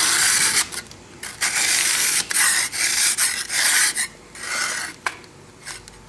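A hand scraper rasping caked rust off an electrolysis anode in about five strokes, each roughly half a second to a second long, with small clicks between them.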